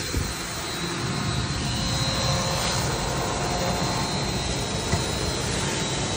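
Three-sided sanding machine running steadily, its spinning abrasive disc heads and brush rollers making an even rushing noise at a constant level.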